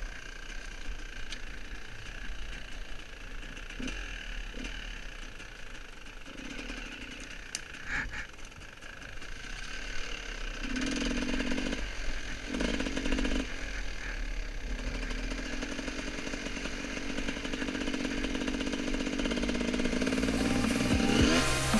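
GasGas enduro dirt bike engine running under changing throttle, its note rising and falling as the rider picks up speed and eases off. Music comes in right at the end.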